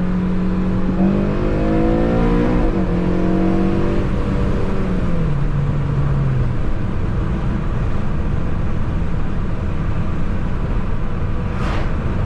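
Car engine running and accelerating: its hum rises in pitch over about three seconds, then drops away. After that only a steady road rumble remains.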